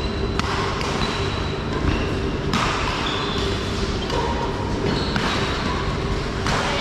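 Badminton play on an indoor court: shuttlecock strikes and short, high squeaks of shoes on the court floor, over a steady background of a busy hall.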